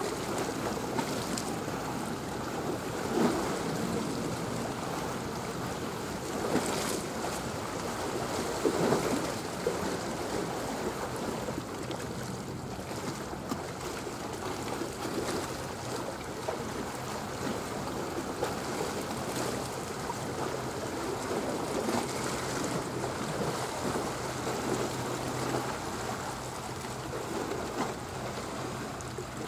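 Choppy sea water washing and lapping, with wind gusting on the microphone in a few louder swells. A faint steady low hum comes in partway through.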